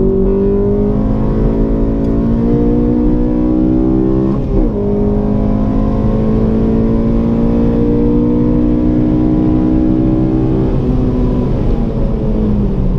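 Honda Civic Si's 2.0-litre four-cylinder engine pulling hard under acceleration, heard from inside the cabin, its note climbing slowly with a brief break about four and a half seconds in. Near the end the pitch drops during a gear change on the manual gearbox.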